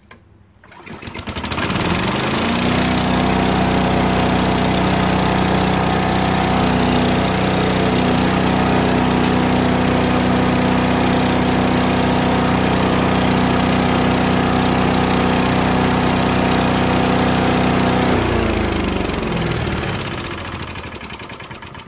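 Craftsman 5-horsepower chipper vac's small engine started, catching at once and rising to full speed within about two seconds. It runs steadily at full throttle, then is shut off about 18 seconds in and winds down, its pitch falling as it coasts to a stop.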